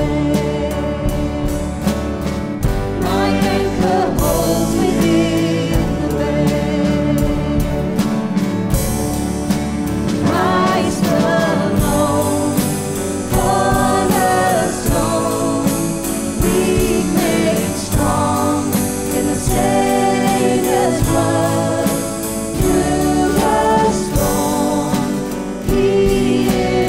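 Church worship band playing and singing a contemporary worship song, moving from the end of a verse into the chorus.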